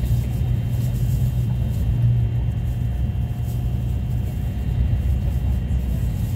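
Shinkansen bullet train running at speed, heard from inside the passenger cabin: a steady low rumble.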